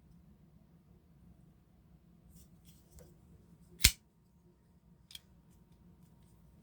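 Twosun TS85 flipper folding knife flicked open: one sharp, loud snap as the D2 blade swings out and locks, just under four seconds in, with faint clicks of handling before it and a smaller click about a second later.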